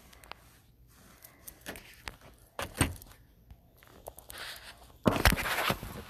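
A few sparse small clicks and taps, then about five seconds in a loud burst of rustling and knocking as the recording phone is picked up and moved.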